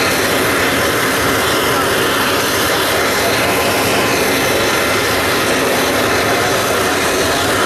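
Parked Boeing C-17A Globemaster III running, a loud, steady jet rush at close range.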